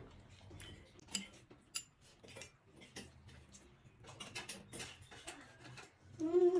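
Light clicks and taps of cutlery against plates while eating momos, scattered irregularly, with a short voiced hum or murmur from a person near the end.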